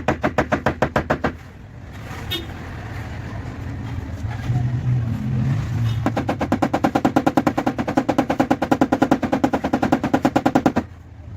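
Rapid metallic tapping on a car's sheet-metal body panel, as in tapping down a dent in paintless dent repair. A short burst comes at the start, then a longer steady run of about seven taps a second from about halfway through until shortly before the end.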